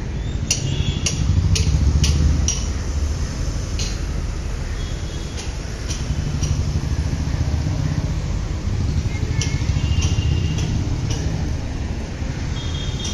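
Low rumble of street traffic that swells and fades, with two runs of footsteps clicking on hard ground about twice a second, one near the start and one about nine seconds in.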